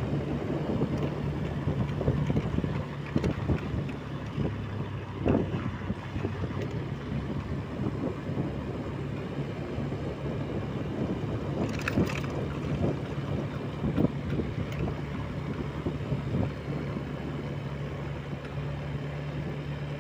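A Honda Scoopy scooter's single-cylinder engine runs at a steady drone as it is ridden along, with wind buffeting the phone's microphone.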